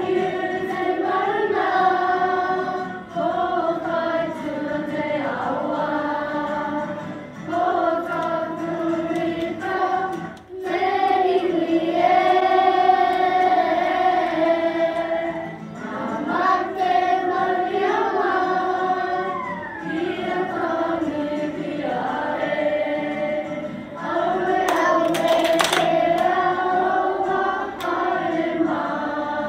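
A group of young children singing a Māori waiata together in unison, phrase by phrase with short breaks between lines.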